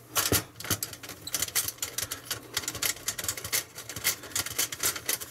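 Rapid, irregular light clicking and rattling, several clicks a second, as hands work the circuit board loose inside the satellite receiver's metal chassis.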